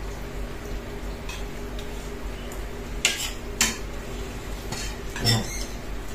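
Metal cutlery clinking and scraping on ceramic plates during a meal: a few sharp clinks, the loudest about three, three and a half and five seconds in, over a steady low hum.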